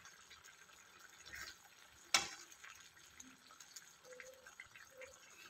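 Faint bubbling of a thick ivy gourd gravy simmering in a pan, with one sharp click about two seconds in.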